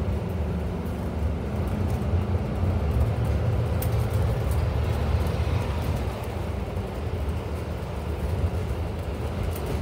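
Inside a moving Scania Enviro 400 MMC double-decker bus: steady low rumble of the diesel engine and road noise, with a few light clicks of rattling fittings about four seconds in.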